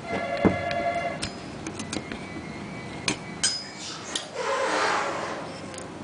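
Metal clutch parts being handled during disassembly: a part clinks and rings for about a second, a few sharp clicks follow, then a longer scraping, sliding rub near the end.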